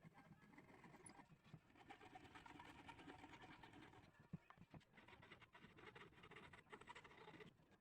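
Near silence, with faint scratching and a few light taps.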